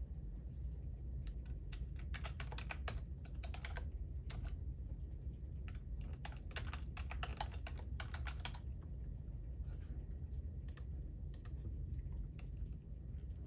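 Typing on a computer keyboard: quick runs of keystrokes in three bursts, with pauses of a second or two between them.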